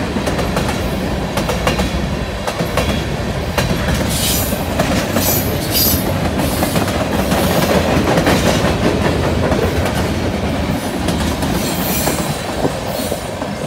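Freight cars of a CN train (tank cars, covered hoppers, a bulkhead flatcar) rolling past close by: steady wheel rumble and clickety-clack over the rail joints, with brief high-pitched wheel squeals a few times.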